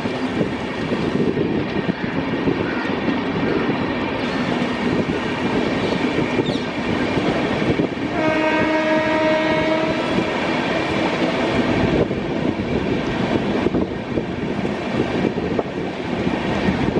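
Moving train of LHB coaches with a continuous rumble and rattle of wheels on track. About eight seconds in, the train's horn, likely from its WAP-7 electric locomotive, sounds one steady blast of about two seconds.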